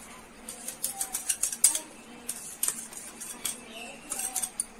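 Light, irregular clicks and taps of a plastic cup knocking against a wire whisk and a glass mixing bowl as powdered sugar is shaken out of it into cake batter.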